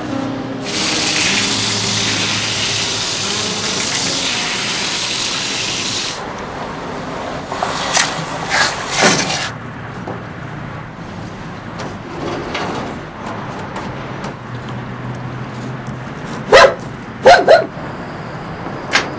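A steady hiss of rushing water for about five seconds, then a dog barking: several loud barks in the last few seconds.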